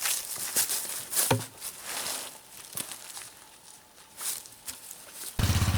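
Footsteps and rustling on leaves and brush, in irregular scuffs and crunches. Near the end a small engine cuts in abruptly and runs with a rapid, even pulse.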